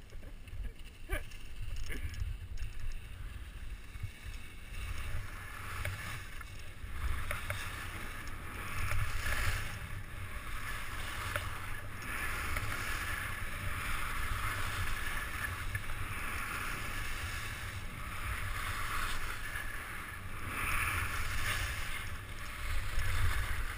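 Skis hissing and scraping over packed snow on a downhill run, the scrape swelling and fading with the turns, over steady wind rumble on the camera's microphone.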